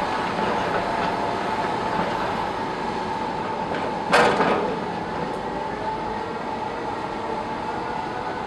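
Bore piling rig running steadily with a machinery hum and a few held tones, and one sharp metallic clank about four seconds in, with no repeated knocking.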